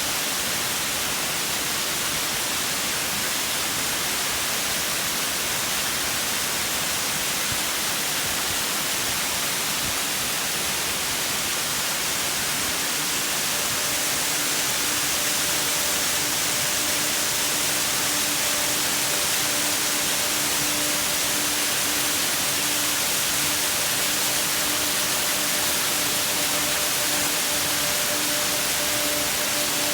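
Large waterfall rushing steadily. From a little under halfway, a Singing Ring (Japanese singing-bowl-type instrument) sounds faintly over it: one low sustained tone with its octave above, pulsing gently.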